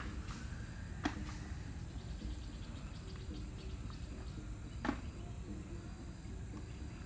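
Two sharp clicks, about a second in and near five seconds, as snail shells are dropped into a plastic bucket, over a steady low rumble of outdoor background noise.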